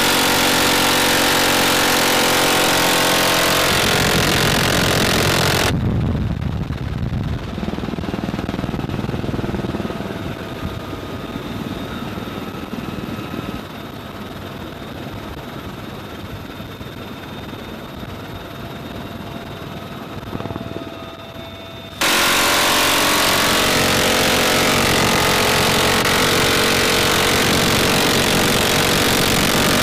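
UH-1Y Venom helicopter heard from inside its open cabin: loud rotor, turbine and wind noise, with the door-mounted minigun firing in the opening seconds. About six seconds in, the sound turns suddenly duller and quieter, and it comes back loud and full just as suddenly about 22 seconds in.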